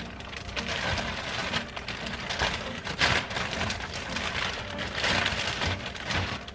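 Clear plastic zip-top bag crinkling and rustling in irregular bursts as a gloved hand rummages inside it for sliced bell pepper strips.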